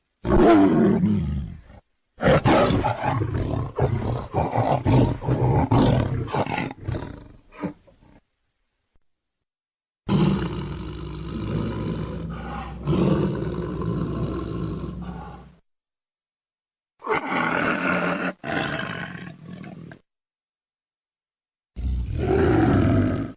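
Tiger roaring and growling in a series of separate recordings cut one after another with dead silence between them. A roar at the start is followed by a run of short, quick growls, then a long drawn-out growl, and two shorter roars near the end.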